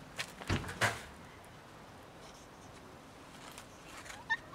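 Handling noise from the camera being swung round: a few quick knocks and rustles in the first second. Near the end, one short high mew from a cat.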